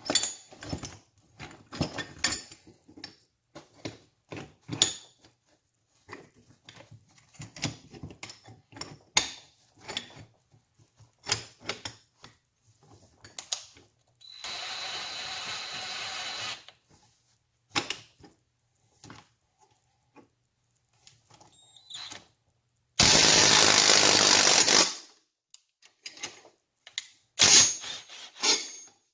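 Workshop work on a small engine: scattered clicks and knocks of tools and metal parts being handled. A power tool runs briefly twice, first a quieter whir of about two seconds near the middle, then a louder two-second burst later on.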